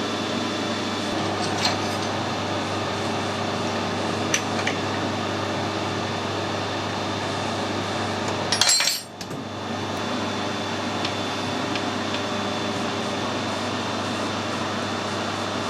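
Light metallic clicks and clinks of a tap and tooling being handled over a steady workshop machine hum, with one short, louder scraping rasp about halfway through.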